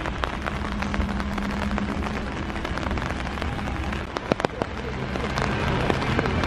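Rain falling, a dense crackle of small drop impacts, with a few louder taps a little over four seconds in.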